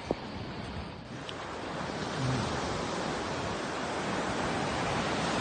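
Surf breaking on a sandy beach: a steady rushing wash of waves, with wind buffeting the microphone. It grows louder after about a second.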